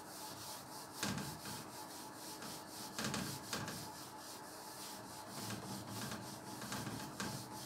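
Whiteboard eraser rubbing marker writing off a whiteboard in quick, repeated back-and-forth strokes.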